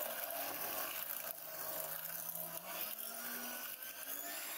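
Electric hand mixer running, its wire beaters whisking a soft butter, sugar, egg and vanilla batter in a glass bowl, with a steady motor whir and the scrape of the beaters through the mix.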